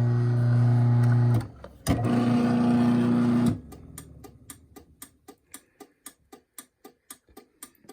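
Craftsman 1/2 hp chain-drive garage door opener's motor hums as it runs, stops with a click, then runs again for about a second and a half. After that comes an even run of sharp clicks, about four a second: the opener's relay clicking as its light blinks to signal that the safety sensors are blocked.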